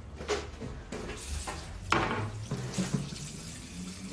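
Water running from a kitchen tap into a sink, coming in uneven spurts.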